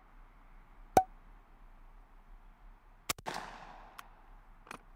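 A Mossberg 500 .410 pump shotgun fires a single shot, a sharp crack about a second in, followed later by a few quieter sharp clacks, including a double clack with a brief rattle around three seconds in.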